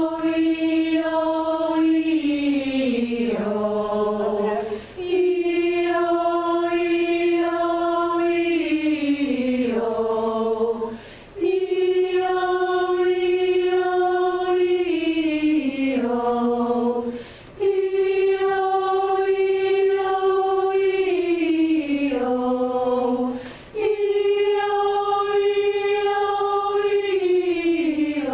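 Chorus singing a vocal warm-up exercise together: a held note that steps down a short descending scale, then a quick breath, repeated about five times with each phrase starting a little higher than the one before.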